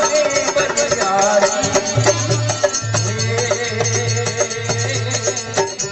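Instrumental interlude of a devotional guru bhajan in folk style: sustained melody over a steady, regular percussion beat, with no singing.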